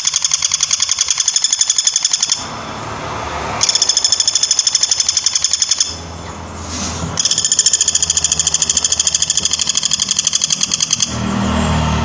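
Woodpecker calling in long, fast rattling trills of sharp, high notes, three runs of them split by two short pauses.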